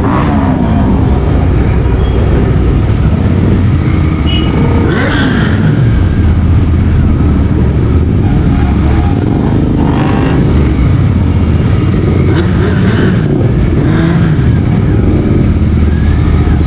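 Motorcycle engine and exhaust running at low speed, the revs rising and falling every few seconds with the throttle, among the engines of other motorcycles riding close by. The main bike is a Royal Enfield Continental GT 650, a parallel twin.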